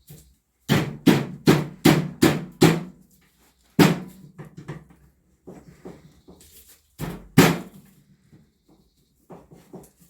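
Hammer blows: a quick run of six strikes at about two and a half a second, a single hard blow about a second later, a few lighter knocks, then two more hard blows about seven seconds in. They come while the steering column is being knocked out of the car.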